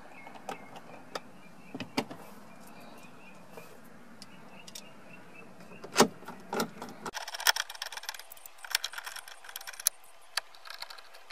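Scattered light clicks and taps of a screwdriver and small screws being handled against plastic dash trim, with one sharper knock about six seconds in. A low background hum drops out abruptly about seven seconds in, after which the clicks come thicker and lighter.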